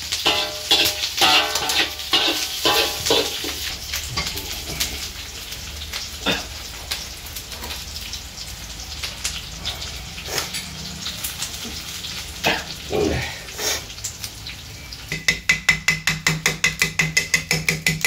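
Crackling and small clinks of food being picked off glowing charcoal in a clay stove, then, near the end, a cleaver chopping fast and evenly on a wooden block, about five chops a second.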